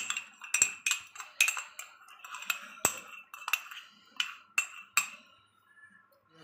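A metal spoon clinking repeatedly against metal dishware, sharp ringing clinks about two a second, stopping about five seconds in. Food colour mixed in milk is being spooned over layered biryani rice before it goes on dum.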